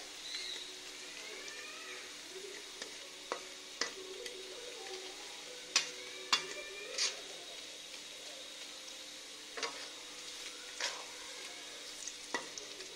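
Sliced onions sizzling in hot oil in a black karahi, stirred with a long flat metal spatula. The spatula scrapes and knocks against the pan about a dozen times, most sharply in the middle, over a steady sizzle.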